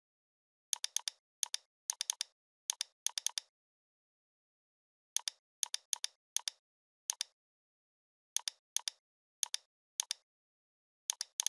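Computer mouse clicking in short runs of one to four crisp clicks, with dead silence between and a pause of about two seconds in the middle.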